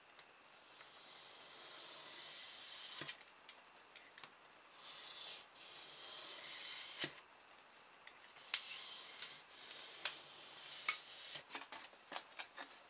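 A blade cutting through polystyrene foam sheet along a steel ruler: a series of scraping, hissing strokes lasting one to three seconds each, then a quick run of sharp clicks and taps near the end as the foam pieces are handled.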